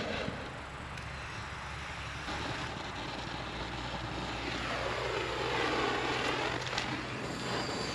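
A distant motor's drone passing by, swelling to its loudest a little past the middle with a sweeping, phasing sound and then easing off.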